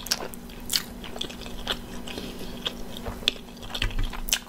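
Close-miked chewing and mouth sounds of a person eating cauliflower-crust pizza: irregular wet smacks and clicks with no steady rhythm. A faint steady hum lies underneath.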